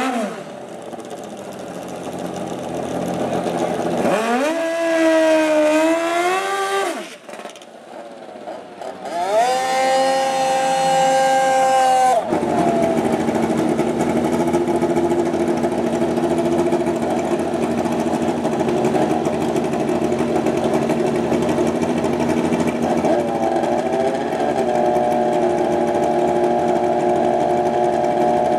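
Drag-racing snowmobile and motorcycle engines at the starting line, revved up and down, then held at a high steady rev for a couple of seconds. After that they settle into a steady run, with a step up in pitch near the end.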